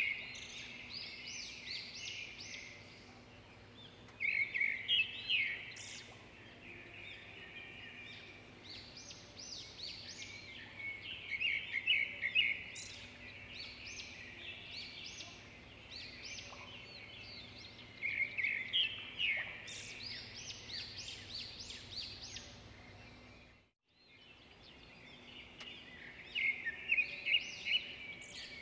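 Small birds chirping and twittering in quick high bursts that come every several seconds, over a faint steady hum. The sound cuts out for a moment near the end.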